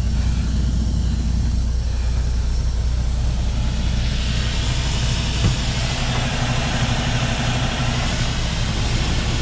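Semi truck's diesel engine idling steadily while the air-ride suspension is dumped, its air exhausting in a hiss that builds from about four seconds in. A single knock about five and a half seconds in.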